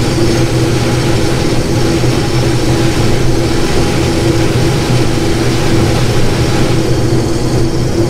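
Combine harvester running steadily at full throttle while harvesting corn in first gear: an even engine and machinery drone, a low hum with a higher tone held over it.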